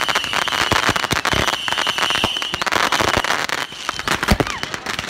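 Many consumer fireworks going off at once: a dense, rapid crackling and popping of firecrackers with louder bangs mixed in. A steady high whistle runs through the first half. The crackling thins out about three-quarters of the way through, and a few single bangs follow.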